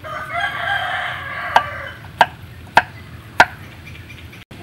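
A rooster crows for about two seconds, then a knife chops four times, about every 0.6 s, against a wooden chopping board, cutting lumps of palm sugar.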